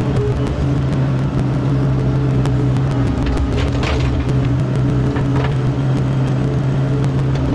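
Mini excavator's diesel engine running steadily, with a few short knocks or scrapes about halfway through.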